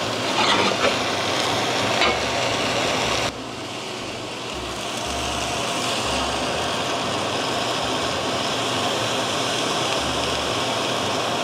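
Food sizzling steadily in a frying pan on a gas stove. The sizzle drops off sharply about three seconds in, then slowly builds back up.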